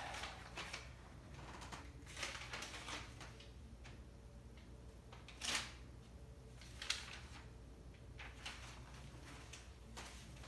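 Sheets of paper rustling and being leafed through, short scattered rustles every second or two with the loudest about halfway through. A faint steady low hum sits underneath.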